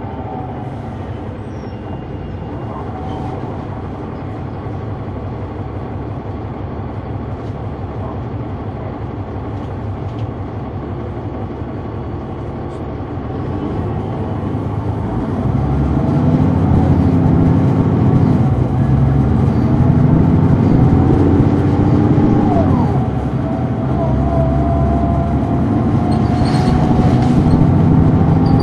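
Caterpillar C9 diesel of a 2004 Neoplan AN459 articulated bus, heard from inside the cabin. It runs steadily and fairly quietly for the first half. About halfway through it gets louder as the bus accelerates, with the engine pitch and a howl from the drivetrain rising and dropping twice as the ZF automatic shifts up.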